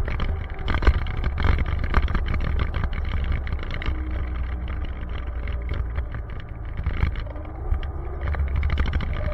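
Wind buffeting and rumbling on the microphone of a moving action camera, with road and vehicle noise underneath and irregular crackles from gusts hitting the mic.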